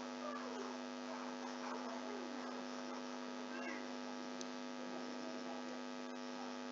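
Steady electrical mains hum in the recording: a constant buzz with many evenly spaced overtones. Faint wavering sounds sit underneath it.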